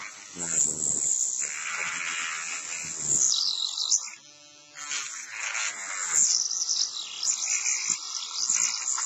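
Small high-speed rotary cutting tool whining as its short blade cuts into the plastic seam of a laptop battery pack, a rubber guide wheel pulling the blade along. The cutting breaks off briefly about four seconds in, then starts again.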